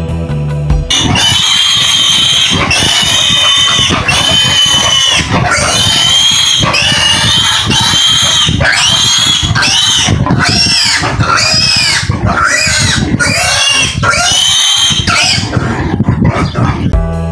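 A fattening pig squealing loudly in a long series of high-pitched cries, one after another with hardly a pause, as it is held by handlers for a deworming injection. Background music plays for about the first second, before the squealing starts.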